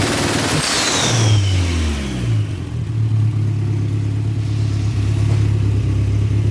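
Turbocharged VW AP four-cylinder engine of a Voyage held high at about 4,500 rpm, then let go. A hiss and a high turbo whistle fall in pitch as the revs drop, and the engine settles to a steady idle about two seconds in.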